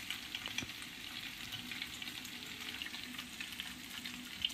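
Macaroni, paneer and onion-capsicum filling frying in oil in a pan on a gas stove: a low, steady sizzle with small crackles.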